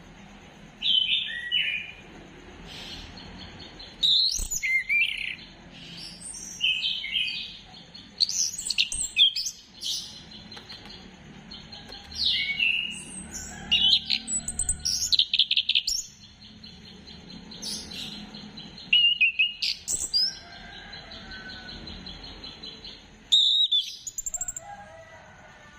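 Chestnut-capped thrush (anis kembang) singing in short, varied phrases of quick high whistles and trills, separated by brief pauses.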